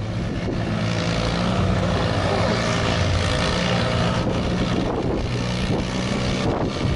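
Modified lawn tractor engine running steadily at a constant speed.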